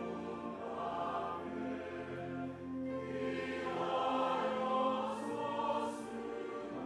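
Mixed church choir of men and women singing a Korean hymn in held chords.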